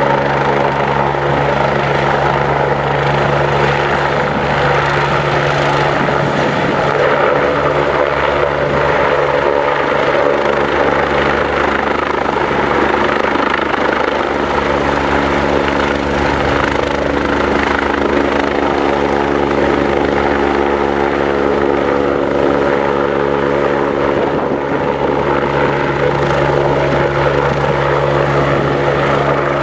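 Police helicopter running steadily: loud engine and rotor noise with a steady, droning hum of several tones.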